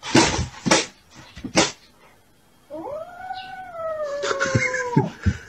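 A kitten giving one long, drawn-out meow that rises a little, holds and trails off, after a few short knocks in the first second and a half.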